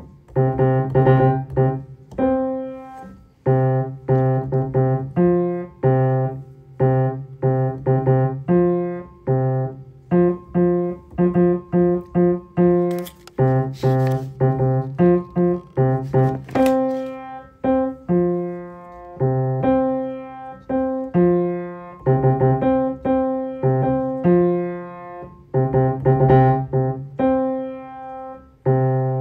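Piano playing a simple rhythmic accompaniment: short phrases of repeated low bass notes with chords above at a steady beat, separated by brief pauses. A few sharp clicks sound near the middle.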